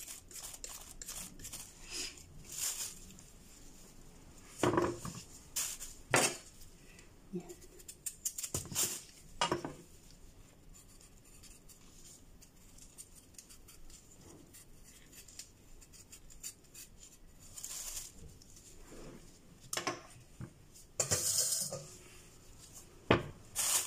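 Kitchen knife peeling and trimming a green radish: irregular scraping strokes and sharp clicks of the blade, with a few longer rustles of a plastic bag.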